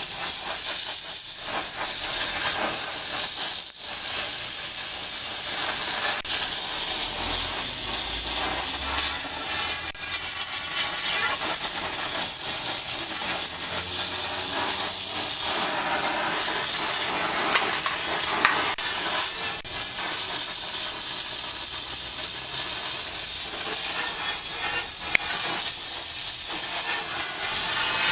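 Gas brazing torch hissing steadily as it heats and brazes the steel bottom-bracket joint of a bicycle frame, with a couple of brief clicks along the way.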